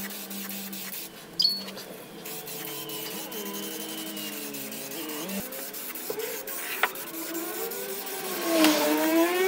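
Aerosol spray can hissing as black spray paint goes onto van window glass, with a short break about a second and a half in.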